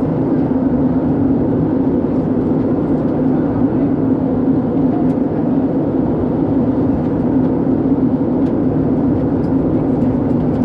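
Steady cabin drone of an Airbus A320-214 in flight, heard at a window seat: its CFM56 turbofans and the rushing airflow make an even, unbroken noise with a low hum running through it.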